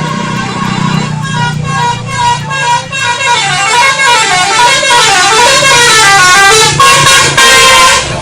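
Indonesian bus 'telolet' horn, a multi-tone musical horn, playing a rapid melody of stepped notes whose pitch runs up and down in quick zigzags, getting louder and ending in a couple of loud held blasts near the end. A low steady rumble runs underneath.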